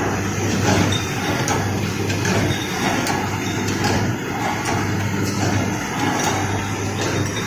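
Glass bottle screen printing machine running: a steady low motor hum with scattered clicks and knocks from its moving parts.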